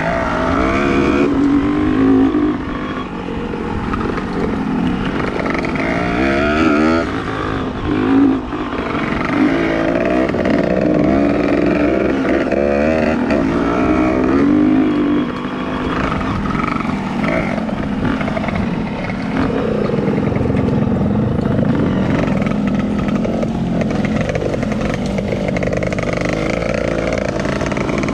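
Dirt bike engine running under load on a rough dirt trail, its pitch rising and falling as the throttle is opened and closed.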